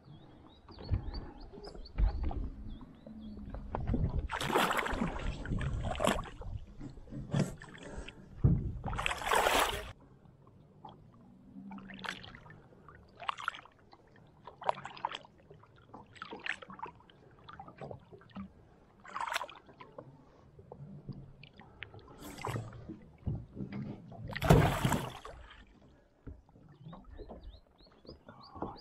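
Water splashing and sloshing beside a boat as a barramundi held in the water by its jaw is released, with a few louder splashes and scattered knocks and thumps of handling on the boat.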